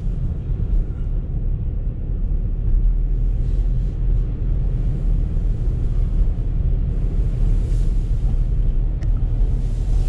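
Strong blizzard wind gusts buffeting a moving car, heard from inside the cabin as a steady low rumble over the road noise. A higher hiss of gusts swells now and then.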